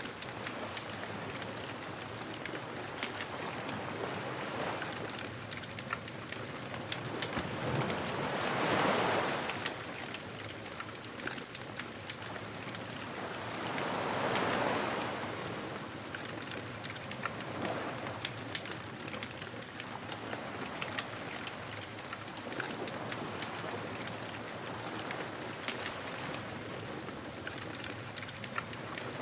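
Beach bonfire ambience: a wood fire crackling and popping over a steady wash of surf, with waves swelling up and falling back twice, about nine and fifteen seconds in.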